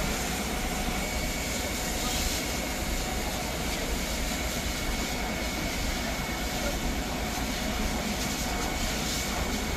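Steady engine rumble with a constant hiss and a faint, high, steady whine, as from a fire engine running at a fire.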